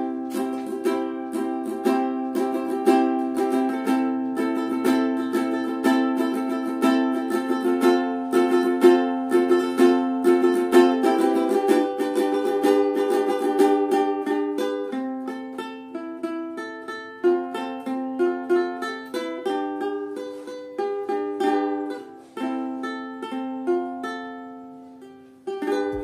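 A ukulele being played, a steady rhythm of strummed chords and picked notes.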